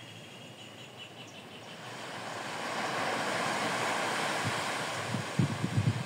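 A small wave breaks on a sandy beach, its wash swelling to a peak about three seconds in and then fading. Near the end, wind starts buffeting the microphone with irregular low thumps.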